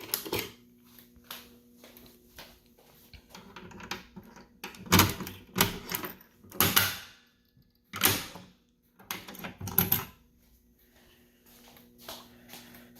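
A series of irregular sharp clicks and knocks, loudest and closest together about halfway through, over a faint steady hum.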